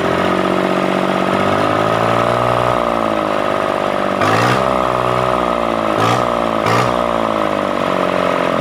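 Kubota D950 three-cylinder diesel engine running, its fuel injection restored. The throttle is worked by hand: the engine revs up slowly about two seconds in, then is blipped sharply three times before settling back toward idle.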